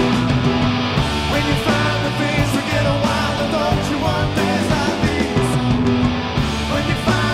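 Rock band playing live: electric guitar over a drum kit.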